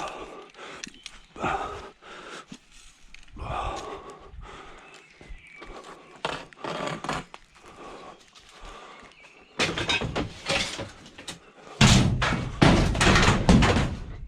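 Thuds, knocks and rattling as scrap is handled, becoming a loud run of heavy banging in the last few seconds.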